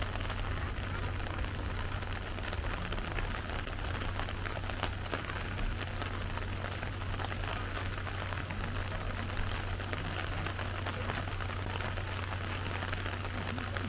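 Steady rain pattering, with many small drop ticks, over a constant low hum.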